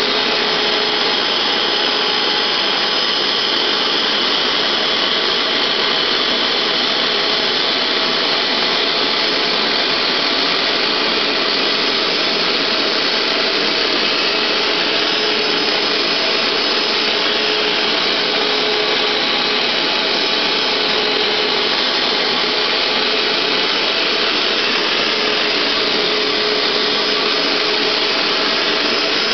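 Hoover SteamVac Gold SpinScrub carpet cleaner running steadily and loudly as it cleans carpet, with a faint hum that fades in and out.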